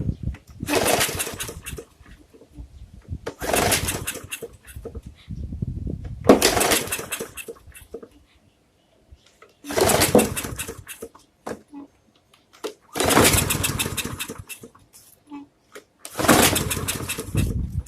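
Recoil starter being pulled on a 140cc Briggs & Stratton push-mower engine, six pulls about three seconds apart. Each pull cranks the engine briefly and it never catches: a no-start.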